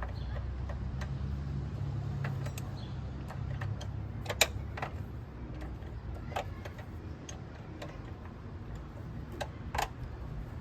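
Scattered metallic clicks and taps of a hand wrench working the car battery's terminal and hold-down nuts, a few per second at irregular intervals, with two louder clinks about four and ten seconds in, over a steady low rumble.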